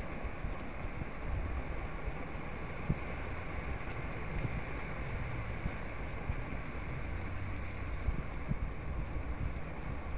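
Heavy rain falling steadily, with wind buffeting the microphone.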